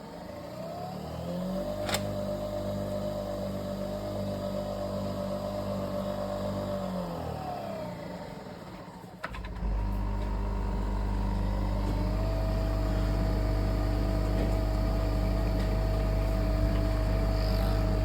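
Nespresso Vertuo Next coffee machine running its descaling cycle: a whir rises, holds for about six seconds and winds down, then after a click a louder steady pump hum with a low buzz starts and keeps going as the descaling solution is pushed through.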